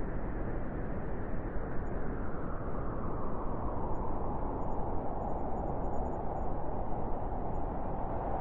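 Strong wind blowing steadily, a dense rushing noise with a brighter whistling band around its middle pitch that eases off midway and builds again near the end.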